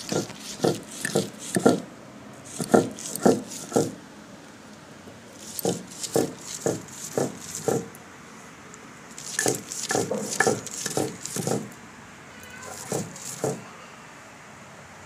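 Stone roller grinding khesari (grass pea) dal on a flat stone slab (shil-nora), scraping back and forth about twice a second in runs of several strokes with short pauses between.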